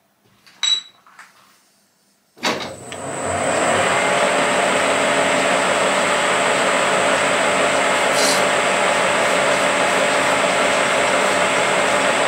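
Metal lathe starting up: a short metallic clink, then a sharp clunk a little over two seconds in as the motor switches on and the chuck spins up over about a second, after which the lathe runs steadily with a high whine.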